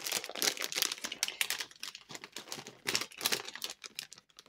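Thin plastic packaging bags crinkling and rustling as they are handled and opened, a quick uneven run of small crackles.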